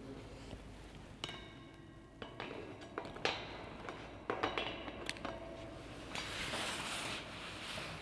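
Scattered sharp clicks and light metallic clinks, some with a brief ringing, from a camera being handled against an iron grille, then a soft rustling hiss about six seconds in.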